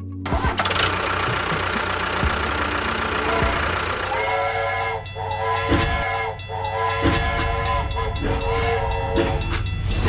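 Toy steam train sound: a steady chugging run. From about four seconds in, a multi-note steam whistle joins it, sounding in a series of short blasts.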